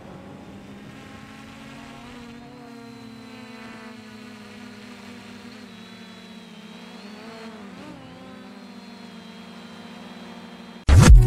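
An MJX Bugs 2C quadcopter's motors and propellers buzzing steadily in flight, the pitch wavering briefly as it manoeuvres. Loud music cuts in suddenly near the end.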